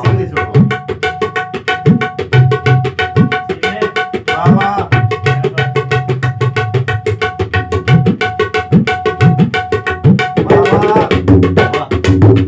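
Tabla played solo: fast, dense strokes on the small high drum ringing at a steady pitch, with deep bass strokes on the large drum, in a driving folk rhythm that runs without a break.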